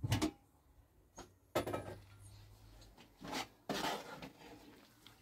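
A handful of separate knocks and clatters, about five in all, with a longer rattling clatter about four seconds in.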